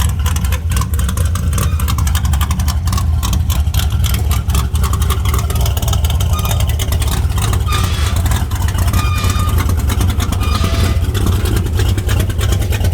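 A car engine running steadily with a loud exhaust, a deep low drone made of fast, uneven pulses.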